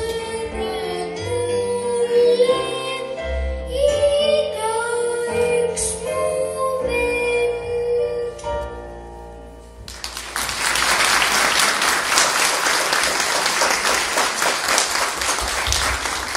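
A child singing a song with instrumental accompaniment; the song ends about ten seconds in and the audience breaks into applause.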